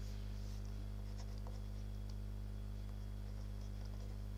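Steady low electrical hum in the recording, with a few faint light ticks and scrapes of a stylus on a pen tablet as handwriting starts.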